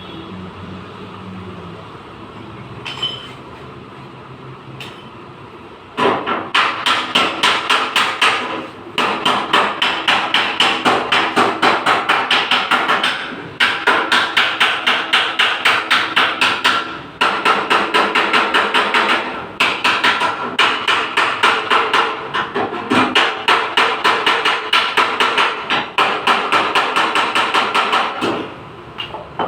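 Hammer beating out dents in a car's sheet-metal body panel: a couple of single taps, then fast runs of blows, about four or five a second, broken by short pauses.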